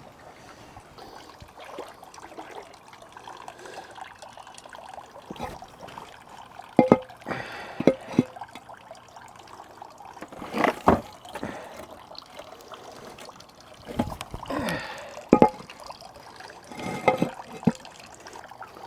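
Water trickling and sloshing in a galvanized stock tank pond, broken by sharp knocks and splashes every few seconds, the loudest about eleven seconds in, as stones are set in the water.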